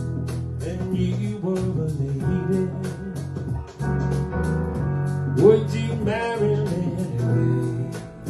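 Instrumental band music with guitar and keyboard over a steady beat, a slow pop song without vocals.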